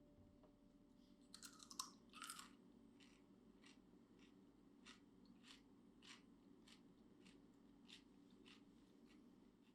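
Crunchy pickled cucumber being bitten, two loud crisp crunches, then chewed with quiet regular crunches, about one and a half a second.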